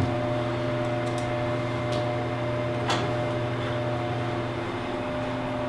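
Steady electrical hum from equipment at a radio repeater site, with two light clicks about two and three seconds in.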